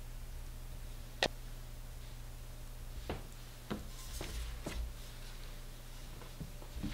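A few light clicks and taps from hands working at a baking tray of cookie dough, the sharpest about a second in, over a steady low hum.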